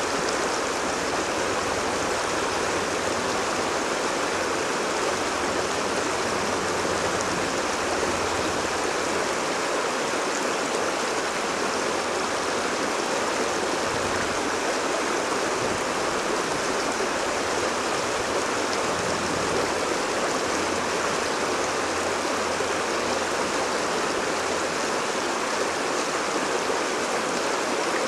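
Shallow, rocky stream rushing steadily over and around boulders in small rapids.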